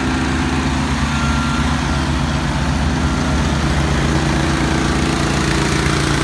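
Small gasoline engine on a wash water recovery cart running steadily at constant speed.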